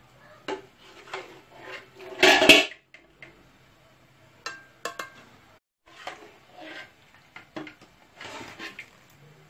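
Metal ladle clinking and scraping against an aluminium pot and the serving plates as sauce is spooned over chicken, with one louder clatter about two seconds in and scattered lighter clinks after it.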